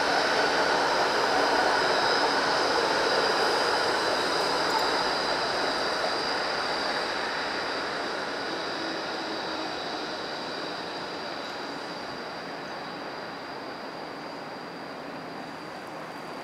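Melbourne E-class low-floor tram running on its rails as it passes and moves away, its sound fading steadily, with a steady high-pitched whine over it.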